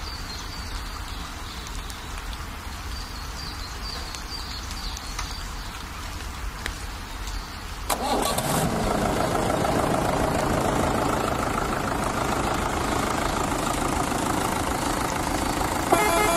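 Steady rain with faint chirping; about halfway through, a vehicle engine sound starts suddenly, louder, and keeps running steadily.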